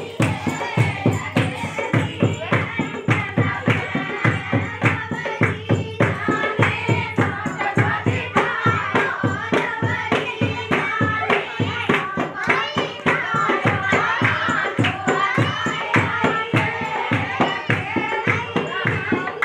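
Women singing a dehati khoiya folk song, with a steady rhythmic beat of drum strikes and hand claps, about three a second.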